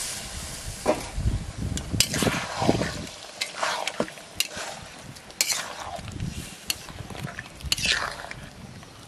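Long metal spatula stirring chicken curry in a steel karahi, with sharp clicks of metal striking the pan about every second, over the sizzle of the curry just after water has been added.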